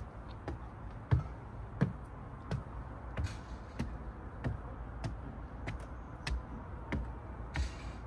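Footsteps of a person walking at a steady pace, about three steps every two seconds, over a low steady rumble.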